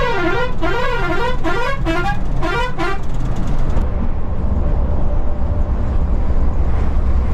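A multi-tone vehicle horn warbling rapidly up and down in pitch, which stops about three seconds in. Under it and afterwards comes the steady low rumble of a bus running at highway speed.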